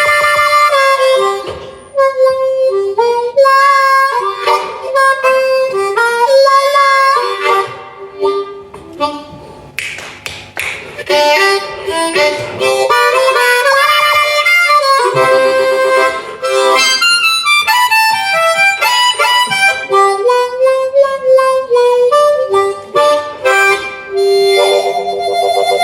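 Solo blues harmonica playing rapid phrases of bent single notes and chords, broken by short breaths, and settling on a held, wavering chord near the end.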